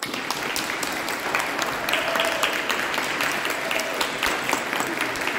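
Audience applauding, breaking out all at once as the choir's final chord dies away and then holding steady.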